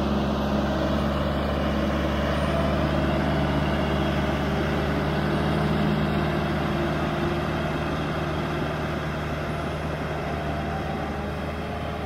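John Deere 450J crawler dozer's diesel engine running steadily, close by, a little quieter over the second half as the dozer moves off.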